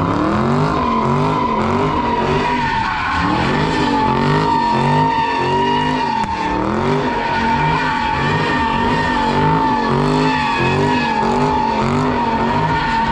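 A car sliding in a donut: a continuous high-pitched tire squeal, with the engine's revs rising and falling in repeated swells, roughly once a second, as the throttle is worked.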